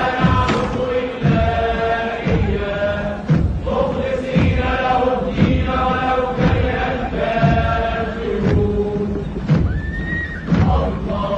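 A chanted song: voices singing long held lines over a steady drum beat of about one stroke a second.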